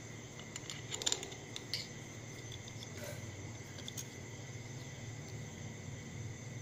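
A few light metallic clicks and taps as a power transistor and its mounting screw are handled against an aluminium heatsink with a screwdriver, over a steady low hum and a faint steady high tone.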